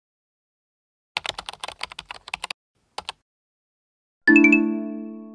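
Computer keyboard typing: about a dozen rapid key clicks over a second and a half, then a quick double click. About four seconds in, a loud ringing chord sounds and slowly fades out.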